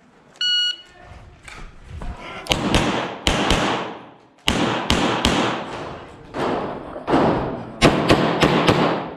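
A shot-timer beep about half a second in. From about two and a half seconds on comes a rapid string of 9 mm pistol shots, in quick pairs and singles, each with a lingering echo.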